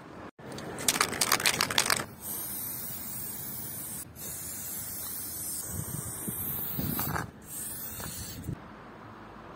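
Aerosol spray-paint cans: about a second in, a can is shaken and its mixing ball rattles rapidly for about a second. Then paint hisses out of the nozzle in long steady spells, with a couple of short breaks.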